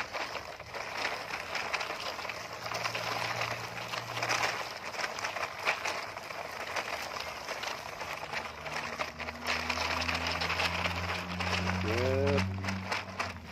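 Plastic toy dump trucks rolling over loose gravel and dirt: a continuous gritty crunching and clicking. A low steady hum joins about a third of the way in, and a short rising call-like sound comes near the end.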